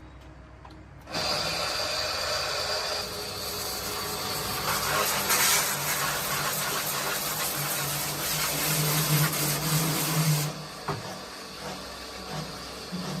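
A power tool starts suddenly about a second in and runs for about nine seconds with a steady hum under a dense hiss, then drops to a quieter, rougher sound near the end.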